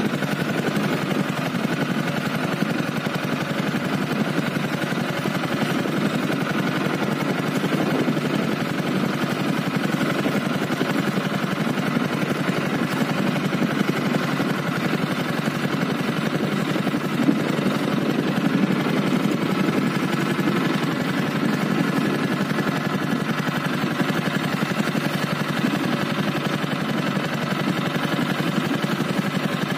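Small boat engine running steadily at low throttle, held slow for trolling a lure.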